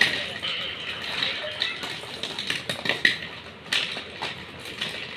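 A heap of white chalk sticks clattering against one another and a steel plate as hands stir and drop them: a fast, irregular rattle of light clicks.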